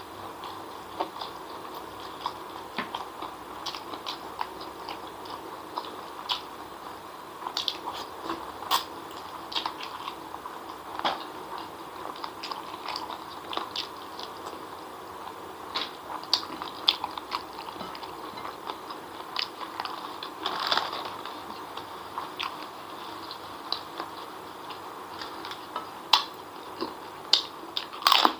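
Close-up mukbang eating sounds: chewing and lip-smacking as fried noodles and then spicy chicken feet are eaten by hand, with many short sharp smacks and clicks over a steady background hum.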